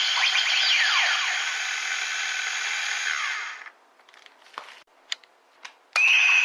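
DX Shakariki Sports Gashat toy playing its electronic sound effects through its small speaker, a dense synthetic sound with sweeping chirps. It stops about three and a half seconds in, a few faint clicks follow, and near the end a new electronic sound with a steady high tone starts abruptly.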